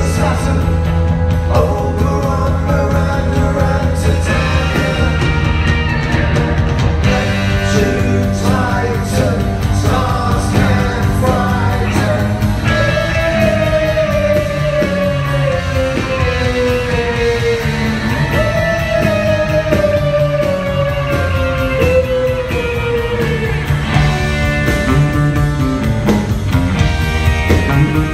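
Live psychedelic rock band playing with electric guitars, drum kit and keyboards, with singing. Through the middle two long pitch slides fall slowly, one after the other.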